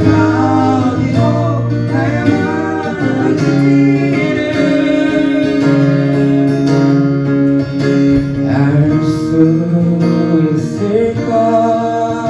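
Music: a song's instrumental passage led by guitar.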